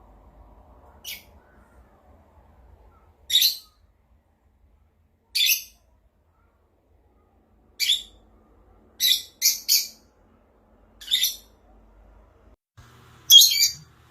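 Parrot giving a string of about nine short, high-pitched squawks at irregular gaps, three in quick succession midway, the loudest near the end.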